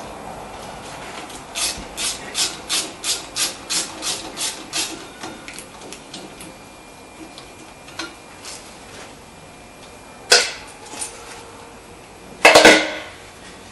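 A ratchet backing out the small 8 mm screw that holds the ABS sensor wire: a run of about ten quick metallic strokes, about three a second, starting a second and a half in. Later come two sharp metal clanks, the second the loudest.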